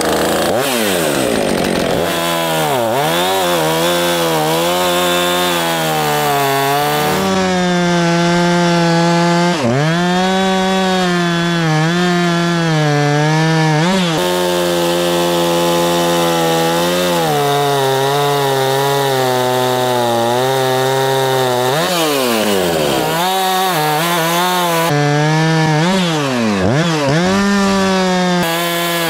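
Husqvarna 445 two-stroke chainsaw revving up, then running at high revs as it cuts through logs; the engine pitch dips and climbs back again several times. It runs strongly now that the hidden fuel leak at the carburetor connector is sealed.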